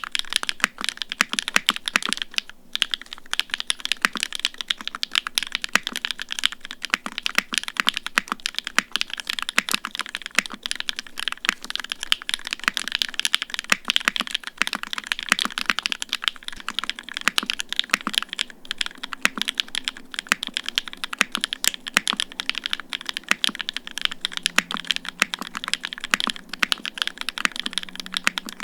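Continuous fast typing on a custom mechanical keyboard with hand-lubed SW x Gateron Onyx UHMWPE linear switches, GMK keycaps, an FR4 plate and no foam: a dense, even stream of key clacks.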